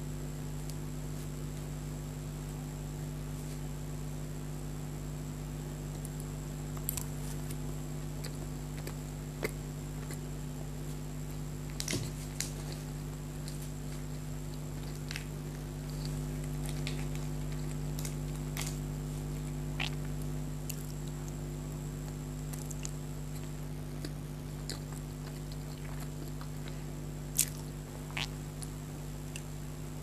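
Soft, squishy chewing of cream cake and pastry, with a few sharp clicks of a metal fork, over a steady electrical hum.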